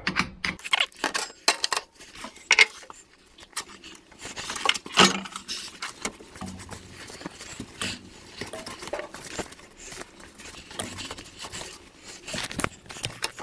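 Irregular metallic clinks and knocks of an Allen key and hand tools against a wood lathe's headstock and spindle, with rag wiping and rubbing over the greasy metal. The sharpest knocks come about a second and a half in and about five seconds in.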